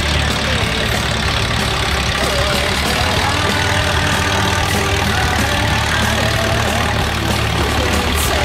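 John Deere 8R tractor's diesel engine running steadily at low revs, with no revving, as the tractor crawls over the muddy track.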